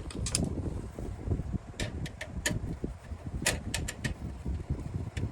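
Light, irregular clicks and taps of small metal parts being handled in a PC case, as a screw and expansion-slot bracket are worked on before a graphics card goes in, over a steady low rumble.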